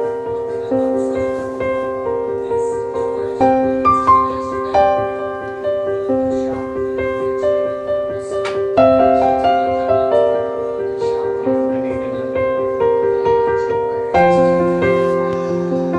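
Background piano music, a melody of held notes over chords.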